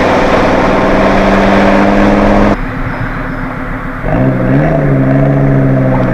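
Volvo C70's five-cylinder engine pulling at steady revs under load, then dropping away abruptly about two and a half seconds in as the throttle is lifted. About a second and a half later it comes back on power at a lower pitch, rising briefly and then holding steady, as across an upshift.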